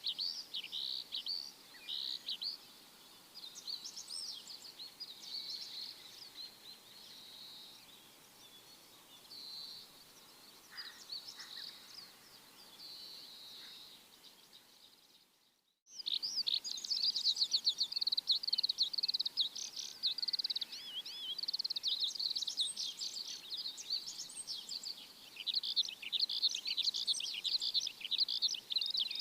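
Many small birds chirping and twittering together in a dense chorus of quick high notes. The chorus thins and quietens for a stretch, breaks off almost to silence for a moment about halfway, then resumes louder and busier.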